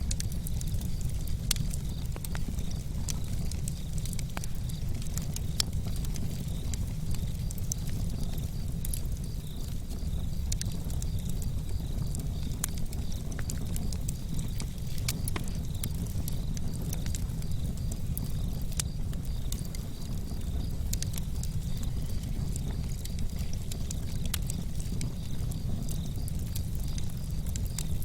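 Campfire burning: irregular sharp crackles and pops of burning wood over a steady low rumble.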